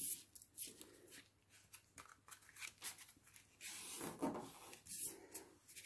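Faint rustling and rubbing of card stock as a greeting card is folded closed and pressed flat by hand, with a few soft taps.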